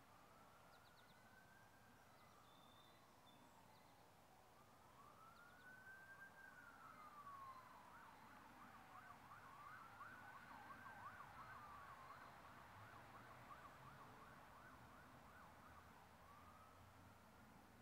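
Faint emergency-vehicle siren: a slow rising-and-falling wail that switches to a fast yelp for several seconds in the middle, then returns to a slow wail near the end.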